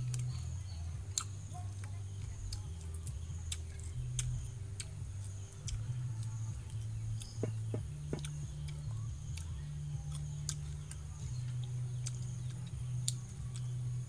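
Irregular sharp crunches and clicks of fried tarantulas being pulled apart and chewed, over a low steady hum and a high steady drone of insects.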